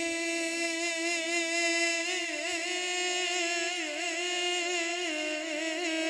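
A man singing a naat unaccompanied, drawing out one long note on a held vowel with small melodic turns.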